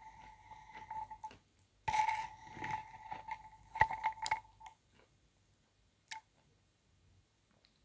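Metal spoon scraping and clinking against a ceramic soup bowl while scooping: a squeaky ringing tone with scrapes and clicks for about four and a half seconds, broken briefly after the first second, with a sharp clink near the four-second mark. A single light click follows a little after six seconds.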